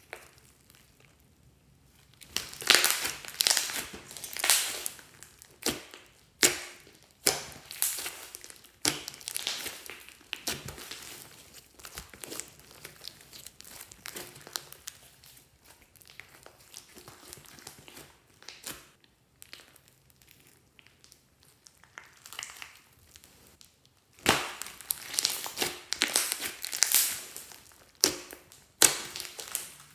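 Hands squeezing and kneading a big mass of slime: irregular bursts of squishing as the air pockets in it are pressed and pop, with a few quieter pauses, the longest a few seconds before the end.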